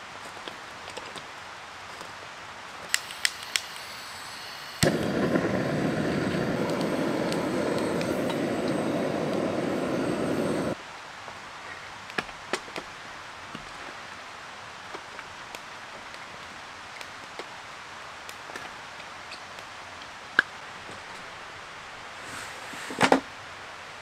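A gas torch hisses steadily for about six seconds as a fire is lit in a small brazier, starting and cutting off abruptly. Sharp pops and crackles come before and after it, and a single knock comes near the end.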